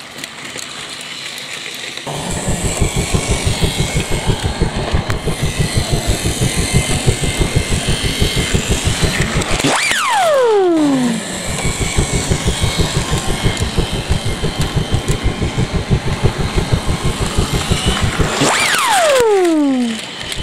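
Battery-powered plastic toy train running on plastic track: a fast, even clatter that starts about two seconds in. Twice the clatter breaks off for a whistle-like tone that falls steeply in pitch over about a second.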